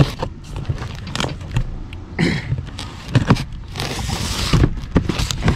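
Cardboard shipping box being cut and pulled open: scattered clicks and rustles of the flaps and tape, with a longer ripping sound about four seconds in. A steady low rumble runs underneath.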